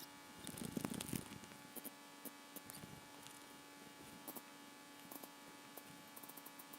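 Faint rustling and scattered light clicks over a steady electrical hum, with a brief louder rustle about a second in.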